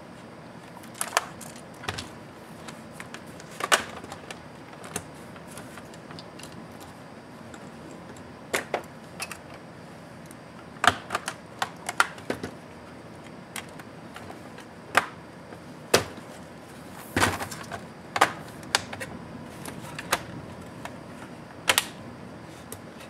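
Irregular sharp clicks and knocks of an MSI GE70 laptop's plastic casing and small parts being handled, turned over and set down on a table during disassembly.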